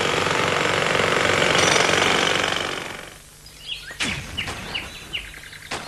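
Electric hand planer running against a log, then winding down and going quiet about three seconds in. After it, birds chirp and there are a couple of sharp knocks.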